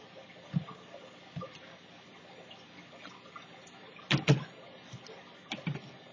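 A few light taps and knocks of hands and painting tools against a plate and the craft table, with a louder pair about four seconds in.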